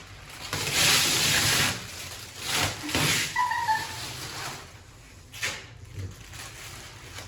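A new refrigerator being opened and handled: rushing sliding and rustling noises, a short squeak, then a couple of clicks as doors or drawers move.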